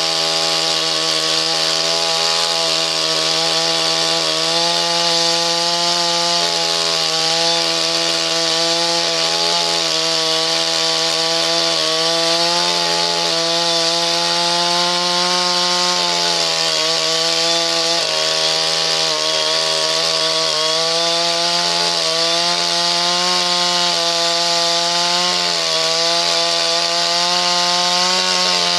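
Gasoline chainsaw running at full throttle while ripping a needle juniper log lengthwise. The engine note is continuous, its pitch wavering slightly as the chain's load in the cut changes.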